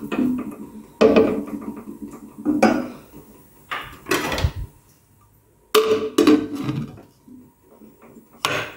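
Wooden spoon scraping and knocking in an aluminium pressure-cooker pot as chicken is stirred in broth, in separate clattering bouts. Toward the end the pressure-cooker lid clatters as it is handled and fitted onto the pot.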